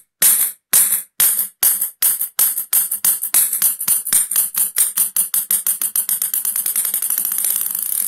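Ping-pong ball bouncing on a table, each bounce a sharp click. The bounces come faster and faster, from about two a second to a rapid patter, as the ball settles, then cut off suddenly.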